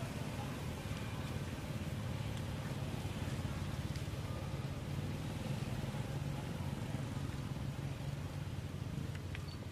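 Steady low rumble with an even hiss of outdoor background noise, with a couple of faint ticks near the end.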